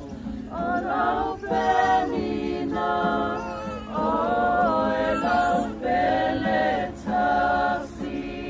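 A group of voices singing together in Samoan without accompaniment, holding long notes in short phrases with brief breaths between them.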